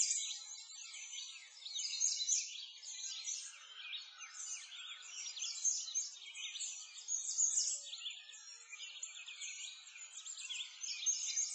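A dense chorus of small songbirds chirping and trilling, many quick rising and falling notes overlapping without a pause.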